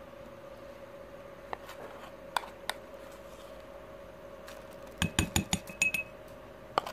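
Metal spoon clinking against a glass and the batter bowl while scooping thick cake batter: a few light taps, then a quick cluster of ringing clinks about five seconds in, over a faint steady hum.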